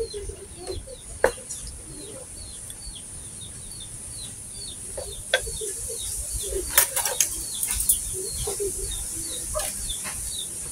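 Chickens in the background: steady peeping, two or three short falling peeps a second, typical of a chick, with low clucks now and then. A few sharp clicks and clinks, most of them in the middle of the stretch.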